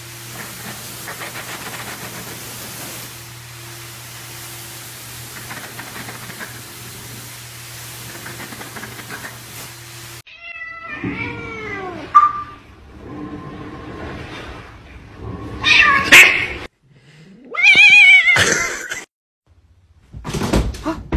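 A steady low hum with hiss, then a cat meowing: several arching calls, then two loud, drawn-out yowls with a wavering pitch in the second half.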